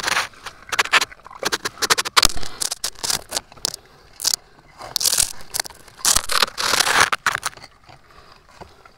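Irregular close scraping, rustling and crackling with many sharp clicks: gloved hands working in the mud and brush of a burrow while pulling out a mud crab.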